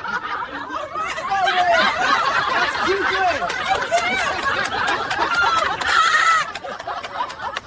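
Laughter with many short, high, rising-and-falling squeals, continuing without a break until a brief drop near the end.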